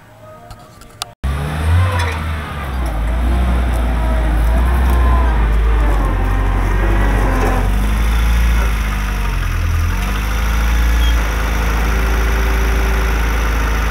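Homemade tractor's engine running close by, its pitch shifting up and down a few times. It is fainter for the first second, then comes in loud and steady after a sudden cut.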